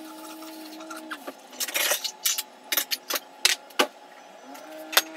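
Glass bowls and kitchenware knocking and clinking as they are handled and set down on a stone countertop: a quick cluster of knocks about two seconds in, then single knocks every half second or so, the last one near the end.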